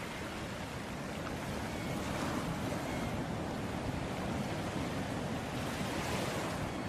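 Sea waves washing onto a beach: a steady surf wash that swells and eases slowly.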